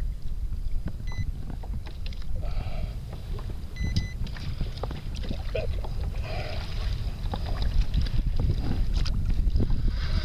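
Wind buffeting the microphone, with choppy water slapping and knocking against the fishing kayak's hull.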